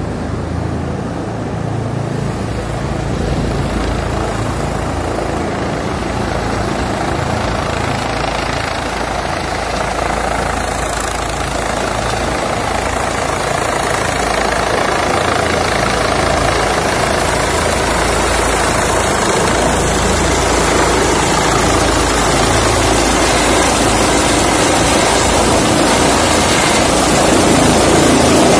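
Rescue helicopter flying in and hovering close by: steady rotor and turbine noise that grows gradually louder as it nears.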